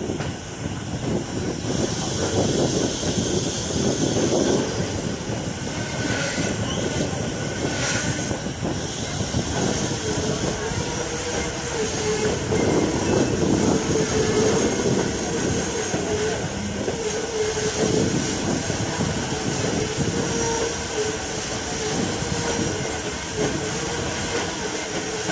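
Steam-hauled passenger coach rolling along the track, with a continuous rumble and clatter of wheels and car body. A hiss rises for a couple of seconds about two seconds in, and from about ten seconds in a steady wheel squeal comes and goes.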